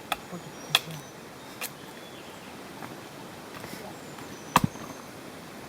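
A few sharp, separate wooden cracks and knocks, with a double knock about four and a half seconds in: firewood being broken or chopped to build a fire.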